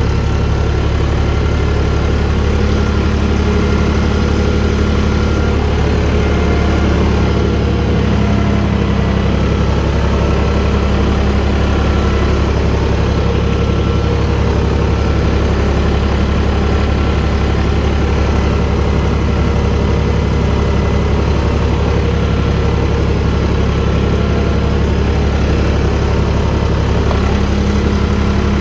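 Valtra BF-75 tractor's diesel engine running steadily at an even speed, with no revving.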